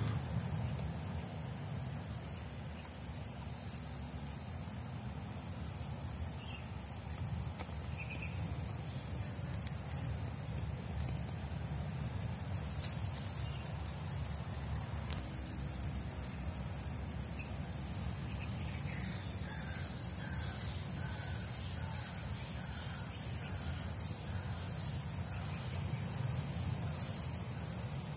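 Insects keep up a steady high drone over a low rumble. From about two-thirds of the way in, a bird calls in a run of short, repeated notes, roughly one a second.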